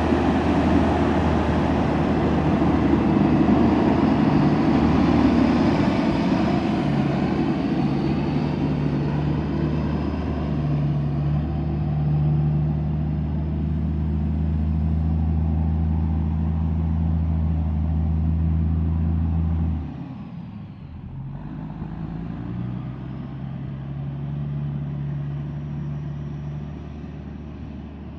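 A large engine running steadily with a low, even hum. About two-thirds of the way through it drops suddenly in level, and a quieter hum with a different pitch pattern carries on.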